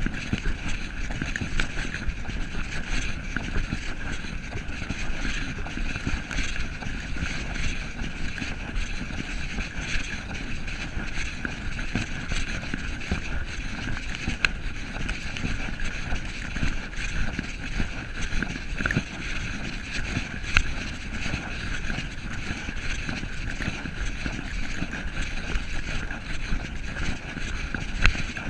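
Steady rolling rumble with wind buffeting the microphone and a few small knocks, as the camera mount moves along a trail.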